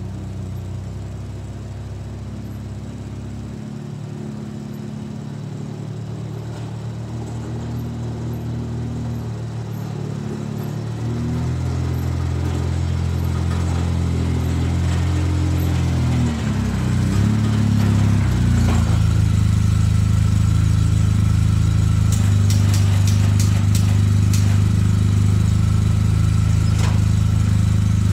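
A 2004 Polaris Sportsman 600 ATV's engine runs and grows louder as the quad comes up and backs in close. It runs loud and steady through the second half.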